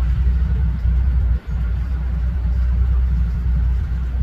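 A steady low rumble, dropping out briefly about a second and a half in.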